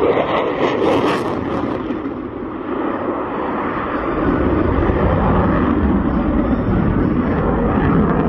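Jet noise from an F-22 Raptor's twin F119 afterburning turbofans as it flies past overhead: a loud, continuous rushing rumble whose deep low end swells from about halfway through.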